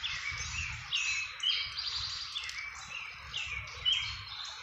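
Small birds chirping steadily: many short, quick chirps, several of them sliding downward, repeating and overlapping throughout.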